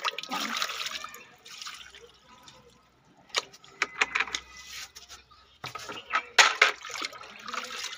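Water poured from a plastic mug onto potted plants, splashing into the soil, with several sharp knocks and splashes a few seconds in and again near the end as the mug is dipped into a bucket of water.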